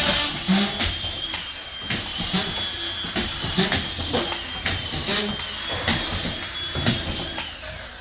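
Work noise: repeated knocks and clatter over a steady hiss, with a thin high whine that wavers slightly.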